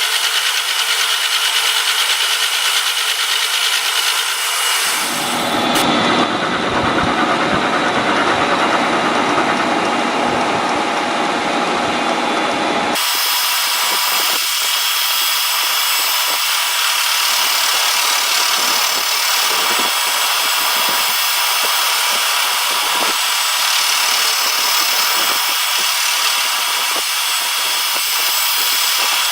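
Milling machine running and cutting metal, a continuous noisy cutting sound that changes character abruptly about five and thirteen seconds in.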